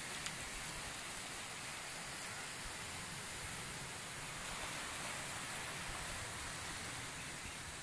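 Steady hiss of small sea waves washing over the stones of a boulder beach.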